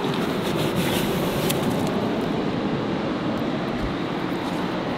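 Steady wash of ocean surf and wind on an open beach, with a few faint clicks near the middle.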